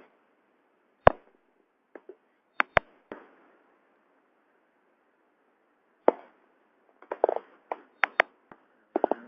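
Scattered sharp clicks and knocks over a faint hiss: single ones about a second in and near three seconds, then a cluster of several from about six to eight seconds in.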